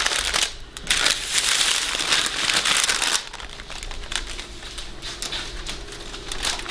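Baking parchment rustling and crinkling as it is gripped and carried, loudest over the first three seconds, then softer.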